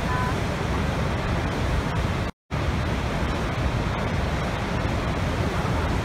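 Horseshoe Falls at Niagara: the steady roar of a huge volume of water going over the brink, deep and even, with no pitched sound in it. About two and a half seconds in, the sound cuts out completely for a split second, then comes straight back.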